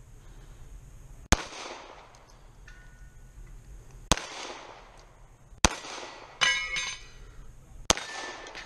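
Four pistol shots fired singly, one and a half to three seconds apart, at steel targets. Shortly after the third shot a struck steel plate rings.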